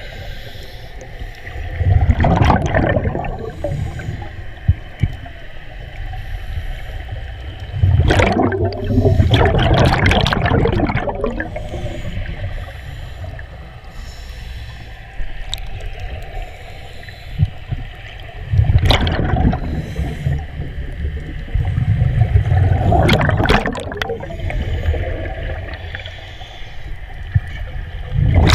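Scuba regulator breathing heard underwater: loud bubbling rushes of exhaled air every several seconds, about five times, with a steady hiss between them.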